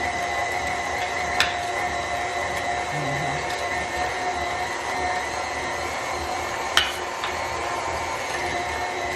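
KitchenAid stand mixer's motor running steadily, driving the meat grinder attachment as beef is ground through the finer plate. Two sharp knocks, about a second and a half in and near seven seconds.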